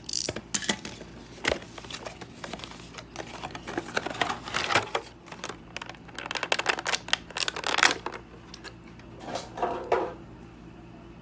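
Toy-box packaging being opened and handled: crinkling and rustling with many sharp clicks and taps, coming in several bursts and dying away near the end.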